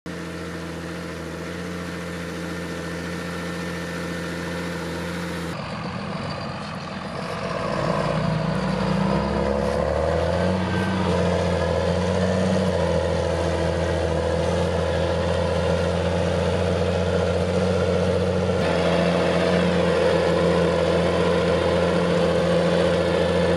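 John Deere 7720 tractor's six-cylinder diesel engine running under load while ploughing, a steady engine note. About eight seconds in it gets louder, and its pitch shifts up and down for a few seconds.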